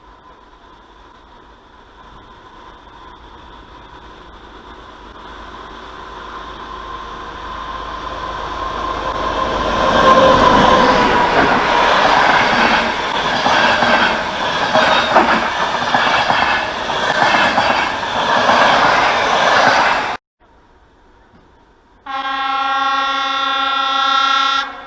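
A train approaching and growing steadily louder, then running past with its wheels clacking over the rail joints. The sound cuts off suddenly. After a short pause a train horn gives one steady blast of about two and a half seconds.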